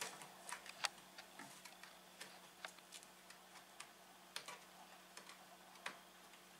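Faint, irregular clicks and taps from a small child's hands fiddling with the edge and catch of a wooden wardrobe door, which does not close properly. The sharpest click comes a little under a second in.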